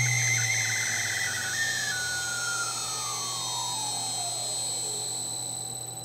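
2.2 kW water-cooled CNC router spindle spinning down, its whine falling steadily in pitch over about five seconds, with some irregular chirping in the first second or two. A high steady whine cuts off suddenly near the end. The chirping and squealing are what the owner suspects are bad spindle bearings.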